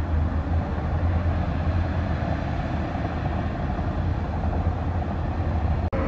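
Shantui DH17C2 bulldozer's diesel engine running steadily as it pushes dirt with its blade. The sound cuts out for an instant near the end.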